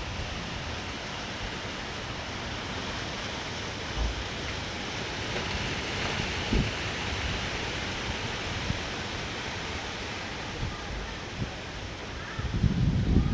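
Steady rushing outdoor noise, with a couple of brief low thumps and louder low buffeting starting near the end.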